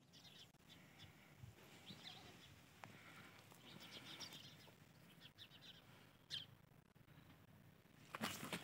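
Faint birds chirping in a quiet outdoor background, with a few louder brief scuffs near the end.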